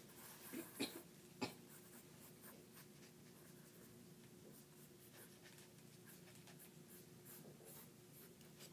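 Faint scratching of pens on paper as two people sketch on drawing pads, with a couple of sharp clicks about a second in. A faint steady hum underneath.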